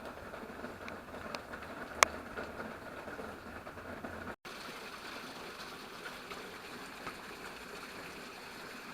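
Steady rush of a small waterfall of runoff pouring down a rock face, with a single sharp click about two seconds in. The sound cuts out for an instant near the middle.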